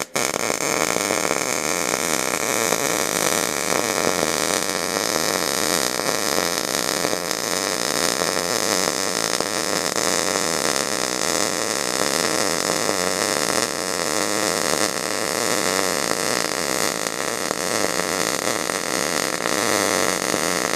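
MIG welding arc from an Eastwood MIG 250 burning solid ER70S6 wire on electrode-positive into thin low-carbon steel: a steady, unbroken crackle as a continuous bead is laid. The machine is set just under 18 volts at about 200 wire feed speed.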